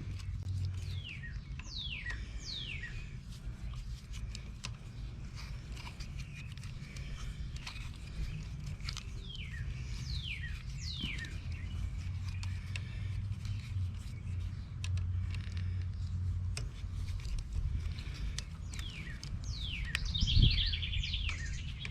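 Birds calling outdoors, short downward-sliding whistles in clusters of two or three, over a steady low rumble with scattered faint clicks.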